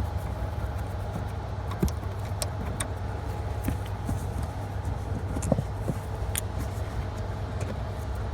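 Scattered light clicks and small metallic clatter as the four screws holding a boot trim panel are undone, over a steady low hum.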